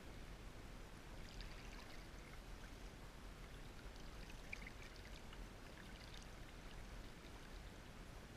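Faint river water running, with small splashes and trickles about a second in and again from about four to six seconds in.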